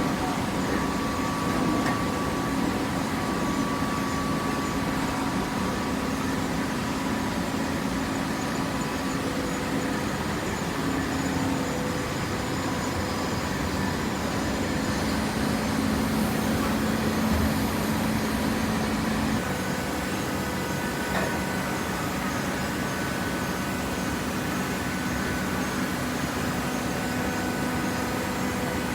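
Horizontal paper baling press running: a steady hum from its motor and hydraulic pump with a few held tones, which change pitch about two-thirds of the way through.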